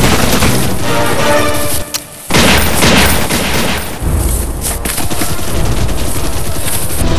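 Dense gunfire and booming blasts, action-film sound effects. They cut out for a moment about two seconds in and come back with a loud blast. Music plays underneath at first.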